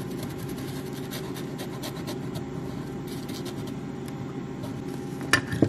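Cloth scrubbing over a laptop logic board in short scratchy strokes to clean it, over a steady low hum, with two sharp clicks near the end.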